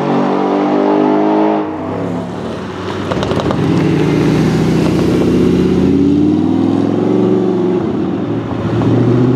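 Audi R8's engine through a Larini aftermarket exhaust, running at low speed and pulling away. The note rises and falls with the throttle, changing sharply at an edit about two seconds in.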